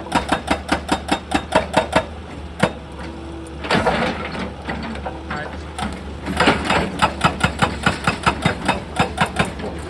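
Excavator breaking rock, most likely with a hydraulic breaker hammer: rapid runs of sharp blows, about five a second, stopping for a few seconds in the middle where a rougher scraping sound comes in. The diesel engine's steady low drone runs underneath.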